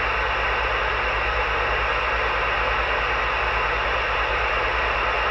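CB radio static: a steady loud hiss from the receiver on an open channel, with a fast, even low buzz underneath.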